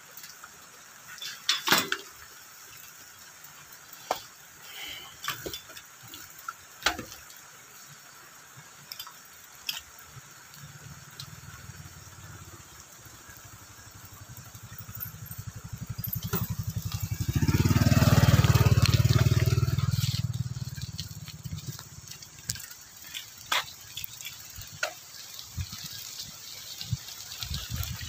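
A small motorbike engine approaches, passes close by and fades away, swelling to its loudest a little after halfway through. Scattered light clicks and knocks come before and after.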